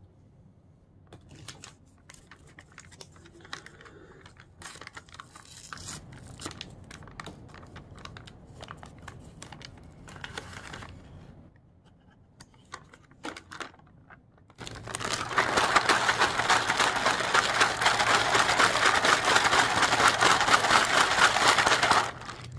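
Plastic MRE hot beverage bag crinkling as creamer and sugar packets are torn and emptied into the coffee, with scattered rustles and crackles. About two thirds of the way in the sealed bag is shaken hard to mix it, making a loud, dense crinkling that lasts about eight seconds and stops just before the end.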